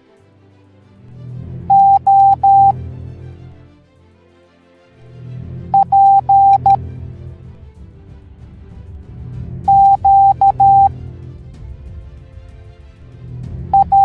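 Morse code letters beeped out as groups of short and long tones on one steady pitch, a new group about every four seconds, over background music with a low bass.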